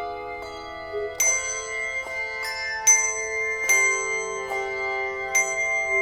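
Instrumental music: bell-like struck notes ringing out one after another over sustained chords.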